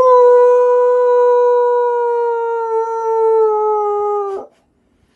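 Husky puppy howling: one long howl, slowly falling in pitch, that breaks off suddenly about four and a half seconds in. She is answering her owner's voice heard over the phone.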